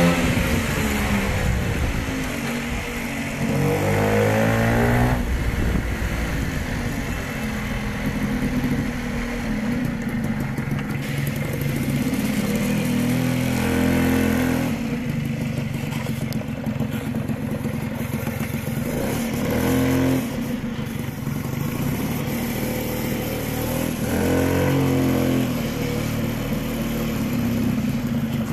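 Piaggio Ciao moped's small single-cylinder two-stroke engine running while riding, its pitch rising and falling several times as speed changes.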